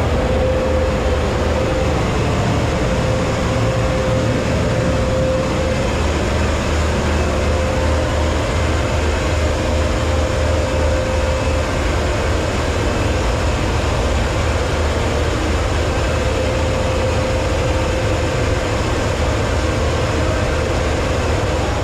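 A heavy engine running steadily at a constant speed: an even low rumble with a steady whine held over it.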